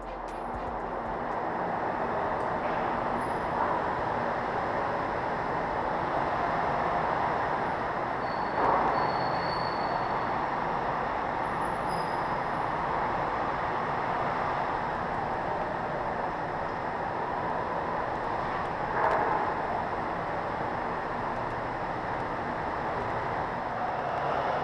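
Steady running noise of a moving vehicle, with a few brief high squeals and two short swells in loudness along the way.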